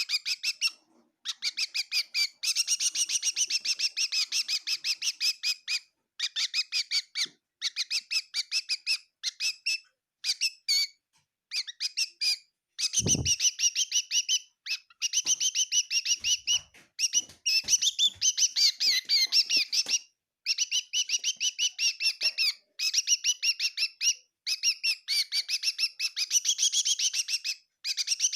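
A bird chirping quickly and repeatedly, several high chirps a second, in runs of a few seconds broken by short pauses. There is a brief low thump about 13 seconds in.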